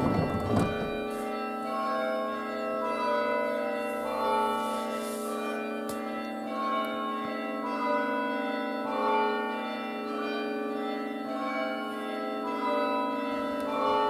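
Background music: a slow melody of held, organ-like notes over a steady low drone.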